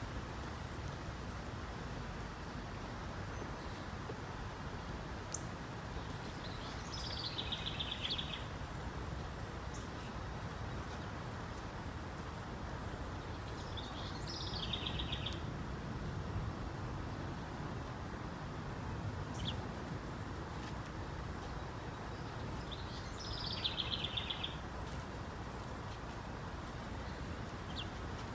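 A songbird sings three times, about eight seconds apart; each song is a falling high note that runs into a fast trill lasting a second or two. Under it is a steady low outdoor background noise.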